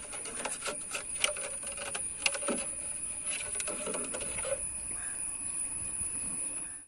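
Scattered clicks, taps and scrapes of a live crab being handled on the floor of a small wooden boat, its legs and shell knocking against the hull. The taps thin out after about four and a half seconds, over a steady high hiss.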